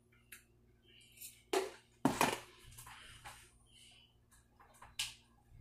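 A few short knocks and rustles from a plastic container of noodles and a spoon being handled and set down on a counter, the loudest knock about two seconds in.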